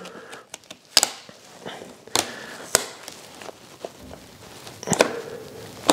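Hands working a vinyl graphic and its paper backing onto a dirt bike's plastic shroud: soft rustling and rubbing, broken by a few sharp clicks and taps about a second apart.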